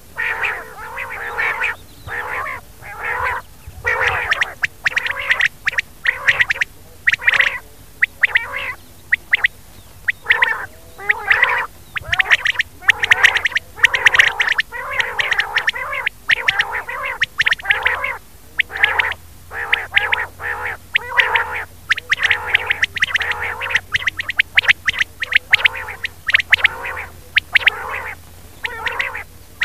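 Rain quail calling over and over in short bursts of rapid notes, about one or two bursts a second: a quail call recording played as a lure for netting quail at night.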